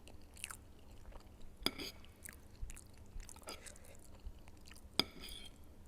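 A person chewing and eating food close to the microphone: soft wet mouth sounds with a few sharp smacks or clicks, the loudest about five seconds in.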